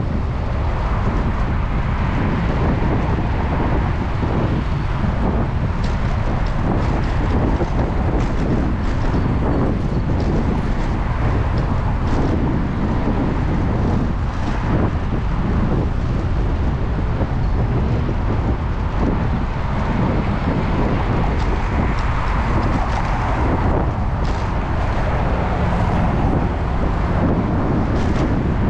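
Steady rush of wind and tyre noise on a GoPro's microphone while cycling, heaviest in the low end, with a few light clicks.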